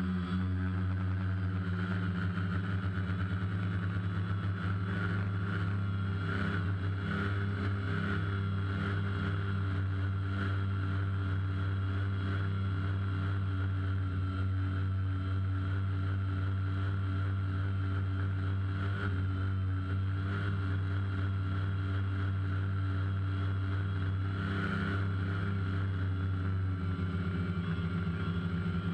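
DJI Phantom quadcopter's electric motors and propellers in flight, picked up by the GoPro on board: a steady buzz with a high whine over it.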